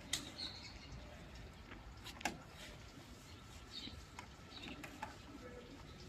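A rag wiping down an air conditioner's plastic casing, giving quiet handling noise with a couple of sharp clicks and a few faint, short, high chirps.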